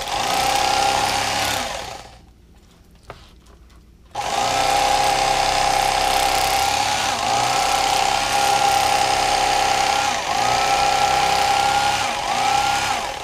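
Electric fillet knife running with a steady buzz while cutting a fillet from a panfish along the backbone. It stops for about two seconds near the start, then runs again, its pitch dipping briefly several times.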